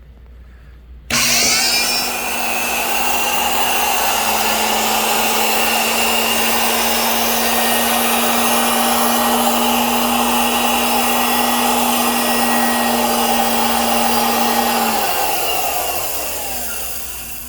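Dumore 11-011 1/5 HP tool post grinder motor, belt off, switched on about a second in and running at a steady whine. Near the end it is switched off and its pitch falls as it coasts down. The owner calls it a nice quiet motor.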